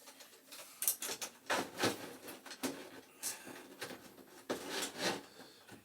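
Irregular light clicks and knocks with some rubbing, from an ignition control board being handled and held in place against a boiler's casing to find its mounting spot.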